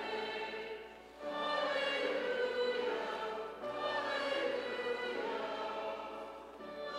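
Congregation singing a hymn together in long held notes, with a short pause between phrases about a second in and another near the end.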